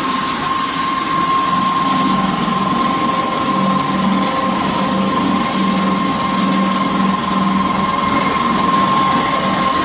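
Small animal-feed pellet mill line running: steady machine noise with a constant high whine over a lower, uneven hum.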